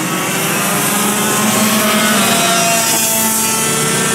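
Several racing kart engines buzzing at once, overlapping, their pitches shifting up and down as the karts speed up and slow through the corners.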